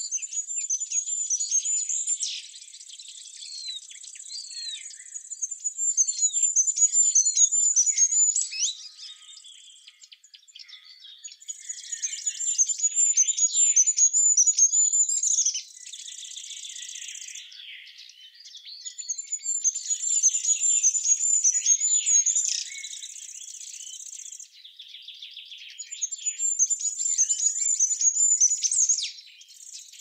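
Small birds chirping and twittering over a high, steady insect trill. The chirps and trill swell and drop back in a cycle that repeats about every seven seconds.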